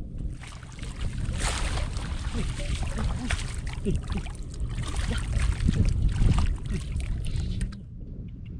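Water sloshing and splashing, with many short splashes, over a low rumble of wind on the microphone. The splashing stops a little before the end.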